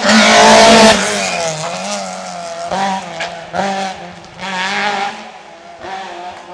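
Rally car passing close and loud in the first second, then its engine revs rising and falling in several short bursts as it pulls away and fades.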